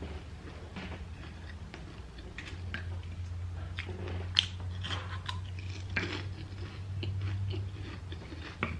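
A person chewing crunchy food close to the microphone: irregular crisp crunches and mouth clicks, over a low steady hum.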